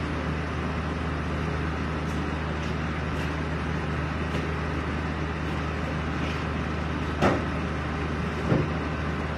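Steady low hum under a constant even hiss, like a running engine or fan heard from inside, with a short knock about seven seconds in.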